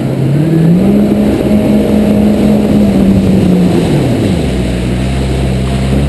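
Personal watercraft engine running at speed; its pitch climbs about a second in, holds, then drops back about four seconds in, over the rush of water and spray.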